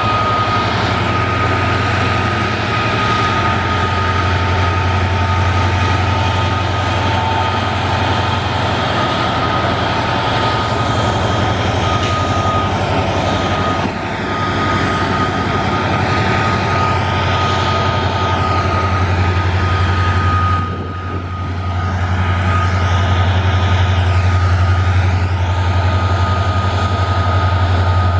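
Twin EMD WDG4 (GT46MAC) locomotives' 16-cylinder two-stroke diesel engines working hard at high notch to pull a loaded freight train up a gradient. It is a loud, steady heavy rumble with a thin steady high whine over it, dipping briefly about twenty seconds in.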